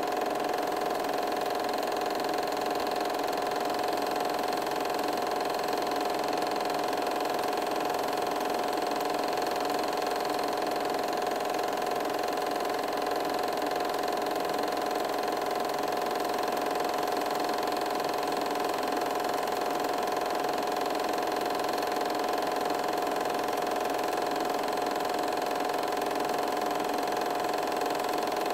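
8mm film projector running steadily: a constant mechanical whir and hum from its motor and film-advance mechanism, with no change in pace.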